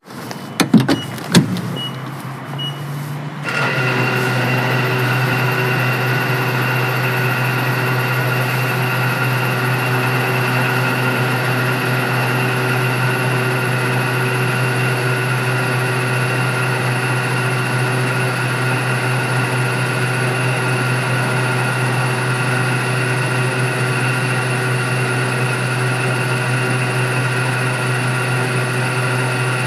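Radio-controlled scale crawler truck's electric motor and gearbox whining at a steady, unchanging pitch as it drives, starting about three and a half seconds in. Before that come a few sharp clicks and some short high beeps.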